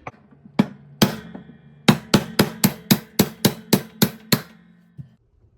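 Hammer blows on a large steel socket set over a washer's transmission shaft: two single strikes, then a quick run of about ten metal-on-metal hits, about four a second. The blows are driving the shaft through to knock the stuck tub loose from the transmission.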